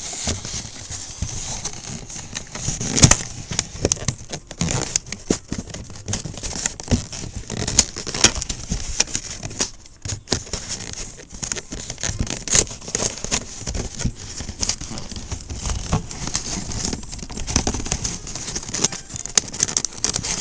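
Packing tape on a cardboard box being cut and picked at with scissors: irregular crackling, rustling and clicks, with a louder knock about three seconds in.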